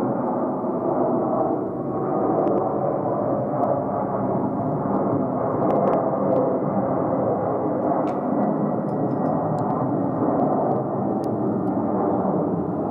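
Twin jet engines of a Boeing 767 airliner running loud and steady, a continuous deep rumble.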